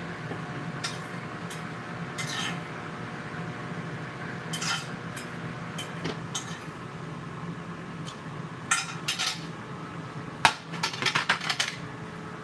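A metal fork clinking and scraping on a plate as someone eats, in scattered single clicks, with a quick run of louder clinks near the end. A steady low hum runs underneath.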